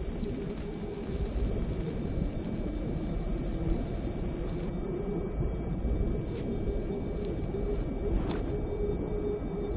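Steady high-pitched ringing tone over a low rumbling drone: a soundtrack sound effect rather than anything in the woodland scene.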